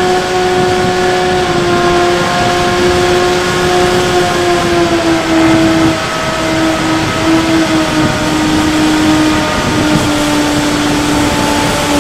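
Electric motor and pusher propeller of a Bixler 3 RC plane running steadily in flight, a steady whine whose pitch eases down a little over the second half, over wind noise on the onboard microphone.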